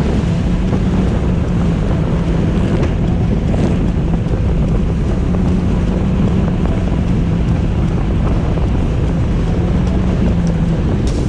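Jet ski engine running at a steady speed on open water, a constant hum under heavy wind noise on the microphone.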